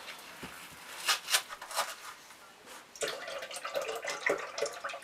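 A cardboard cream carton is torn open, with a few sharp crackles, then whipping cream is poured into a stainless-steel mixing bowl, splashing and gurgling from about three seconds in.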